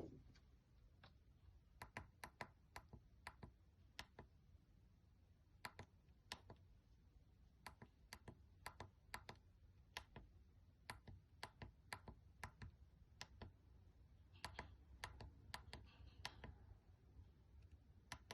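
Light, sharp clicks of a breadboard Morse telegraph key being tapped out in irregular groups with short pauses, as a message is keyed in Morse code. No beep or buzzer tone accompanies the clicks.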